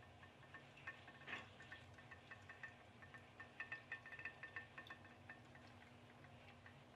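Faint, irregular rapid ticking and clicking from a coil-tube pop-pop boat made from an aluminium mackerel tin, running on a tea light in a glass bowl of water, with one louder knock about a second in.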